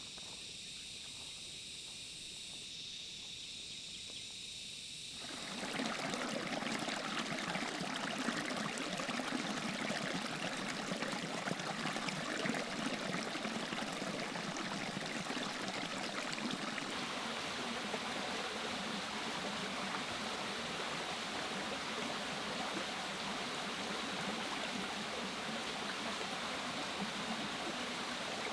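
High, steady insect drone at first. About five seconds in, the steady rush of a flowing stream comes in and continues.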